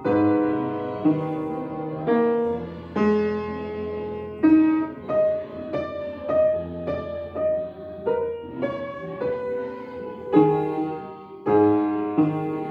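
A child playing a slow piece on an upright piano: chords and melody notes struck about once or twice a second and left to ring.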